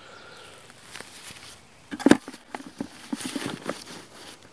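Handling a rolled camouflage tarp and stowing it in a plastic bucket: faint rustling, a sharp knock about two seconds in, then a run of lighter knocks and rustles.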